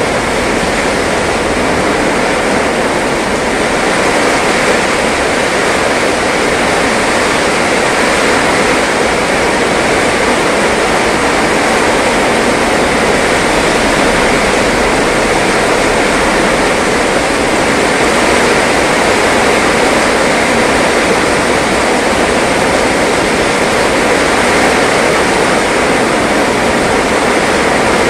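Heavy downpour: steady, loud hiss of rain pelting a flooded asphalt road. About halfway through, a box truck drives through the standing water.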